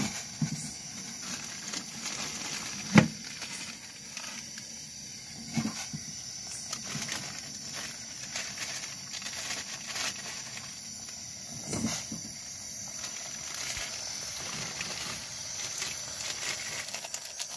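Water boiling in a steel pot on a portable gas stove, with a few knocks against the pot as dry instant-noodle blocks go in and are handled. The loudest knock comes about three seconds in. Under it runs a steady high-pitched chorus of night insects.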